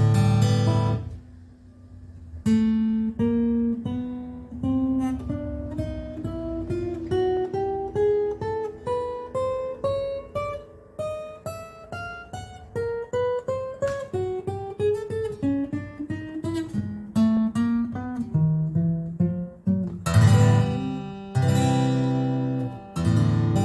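Taylor 214CE steel-string acoustic guitar being played. It opens with a strummed chord, then single notes are picked one after another, climbing steadily up in pitch and stepping back down, and strummed chords return near the end.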